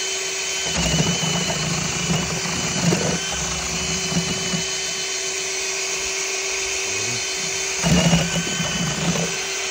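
Cordless drill with an egg-beater mixing paddle running steadily at high speed, trigger locked, stirring self-leveling underlayment slurry in a plastic bucket. A few low bumps come through as the paddle churns the mix.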